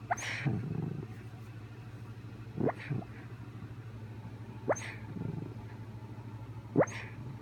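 Sleeping puppy making short, high squeaks that sweep sharply upward in pitch, four of them about two seconds apart, over a steady low hum.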